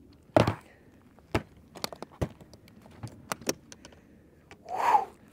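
Hard plastic pistol case set down on a table with a thud, then its latches and lid clicking open in several sharp snaps, with a brief scraping rustle near the end.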